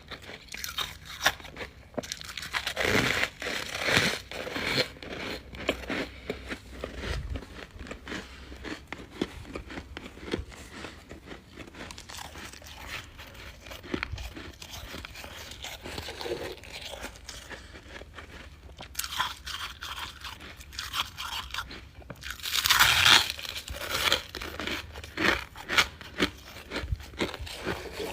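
Close-miked crunching and chewing of refrozen freezer frost, with bursts of loud bites, the biggest about three-quarters of the way through, between stretches of quieter chewing.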